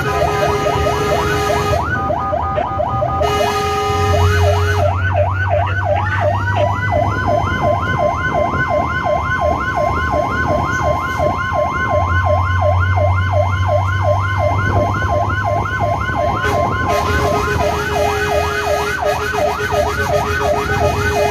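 An emergency vehicle's electronic siren wails in fast rising-and-falling sweeps, about three a second. It is heard loud from inside the cab. A long steady tone runs over the sweeps through the middle, and a lower steady tone sounds near the start and again near the end.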